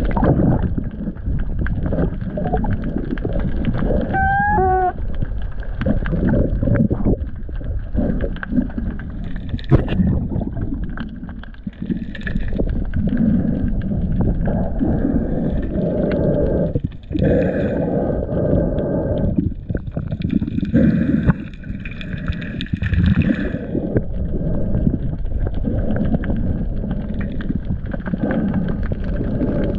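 Underwater sound through an action camera's waterproof housing while a spearfisher swims: steady rumbling and gurgling of water moving around the housing. About four seconds in comes a brief falling squeak, and between about 16 and 24 seconds there are faint higher-pitched tones.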